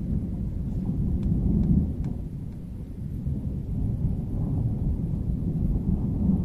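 Thunder rolling from a strong thunderstorm with near-constant lightning: a continuous low rumble that swells about a second and a half in, eases off around three seconds, then builds again.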